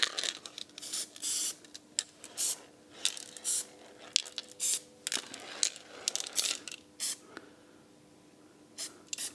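Aerosol can of black spray paint fired in short hissing bursts, about one a second, with small clicks between them and a brief lull before two last quick bursts near the end.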